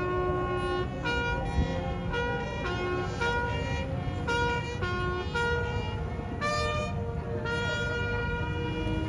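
A wind instrument playing a melody of held notes that change pitch every half second or so, with a brief wavering note near the end.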